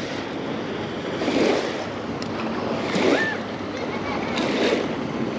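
Small waves lapping and washing against the river shore, swelling about every second and a half, with wind on the microphone.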